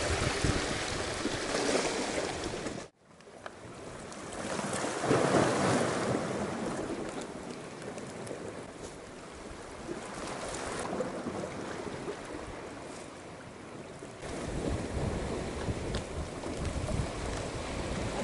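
Small waves washing against a rocky shore, with wind on the microphone. The sound drops out for a moment about three seconds in; the wash swells about five seconds in, and the wind rumble gets stronger near the end.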